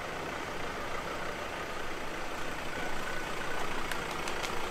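Vehicle engine idling with a steady low rumble, a few faint ticks near the end.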